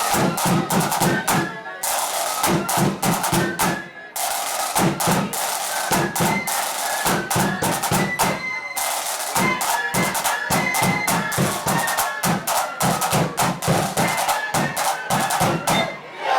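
Blood-and-thunder marching flute band playing: high flute melody over heavy bass drum and rapid snare drumming, with brief breaks in the beat about two, four and eight seconds in.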